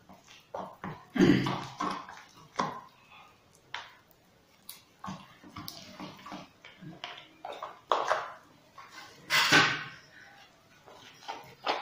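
Spoon stirring and scraping a thick paste in a small bowl: irregular scrapes and knocks, with a louder one toward the end.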